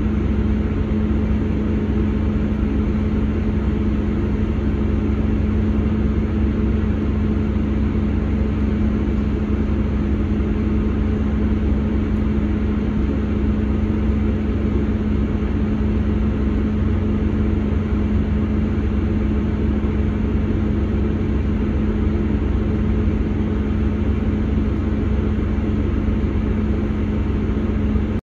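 Steady drone of a Class 159 Sprinter diesel multiple unit heard inside the passenger saloon, with a constant low hum from the underfloor diesel engine while the train runs slowly into a station platform. The sound cuts off abruptly near the end.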